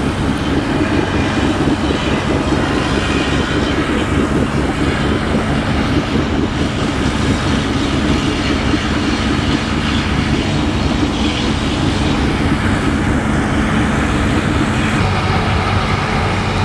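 Boat engines running at low speed on the river: a steady, deep drone whose pitch shifts slightly about fifteen seconds in.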